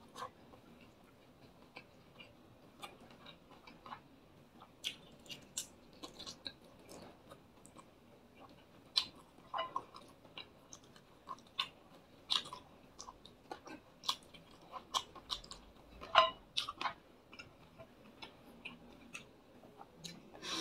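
A man chewing a mouthful of fried fish and rice, with scattered soft, irregular mouth smacks and clicks.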